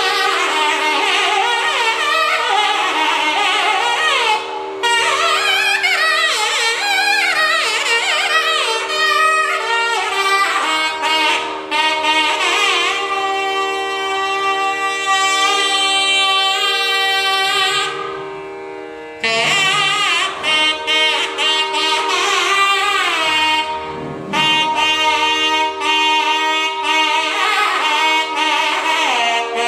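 Nadaswaram played solo in Carnatic style, its reedy melody sliding and bending between notes over a steady drone, with one long wavering held note. The playing pauses briefly twice, near 5 s and about 18 s in, for breath.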